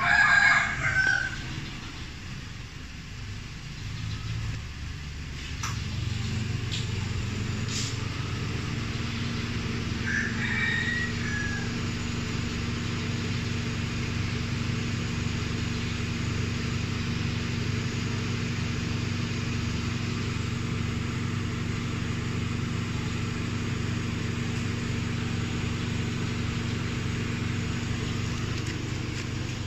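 A rooster crows right at the start and once more, fainter, about ten seconds in. From about six seconds in, a car engine idles steadily.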